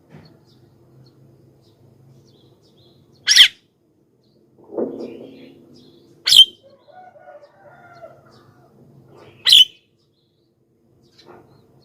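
Javan myna (jalak kebo) giving loud, harsh, short calls: three sharp calls about three seconds apart, with a softer, lower sound about five seconds in.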